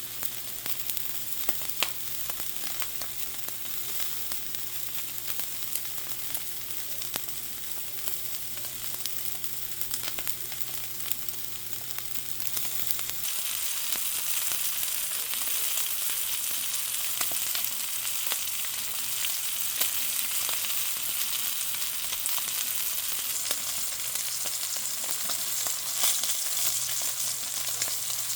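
Steak frying: a steady sizzle with many small pops and crackles. About halfway through, a low background hum cuts out and the sizzle grows louder.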